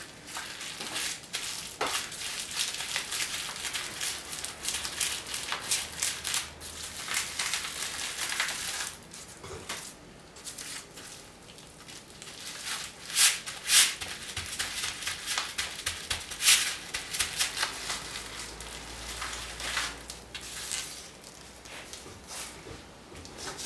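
Plastic bubble wrap crinkling and rustling as it is handled and pressed onto a painted surface, with a few sharper crackles past the middle.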